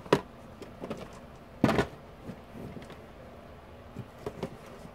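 A few short knocks and thumps from objects being handled and set down on a tabletop, the loudest about a second and a half in, with lighter taps near the end.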